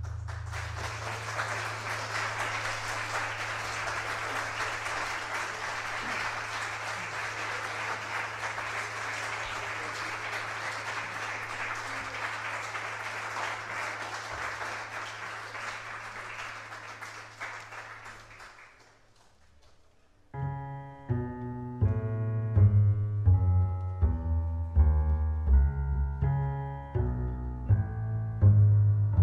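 Audience applauding, dying away over about the first eighteen seconds. After a brief hush, a tango quintet of bandoneón, piano, violin, double bass and electric guitar starts the next piece with sharply struck, separate notes over a strong bass.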